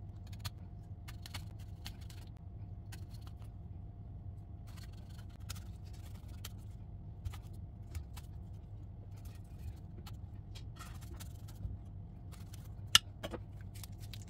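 A kitchen knife scoring the rind of a whole pomegranate: faint scratches and light ticks over a steady low hum, with one sharp click about thirteen seconds in.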